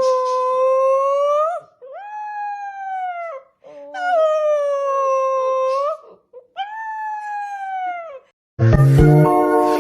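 A dog howling: four long drawn-out howls in a row, each held one to two seconds on a steady pitch that bends at the start and end. Loud music cuts in near the end.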